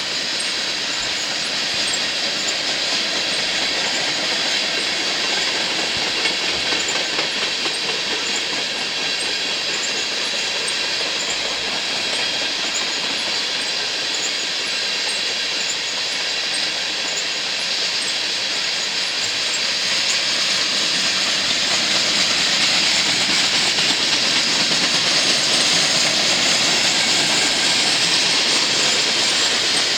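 A train of empty crude oil tank cars rolling past: a steady rumble and rattle of steel wheels on rail, with faint clickety-clack at the rail joints. It grows louder about twenty seconds in.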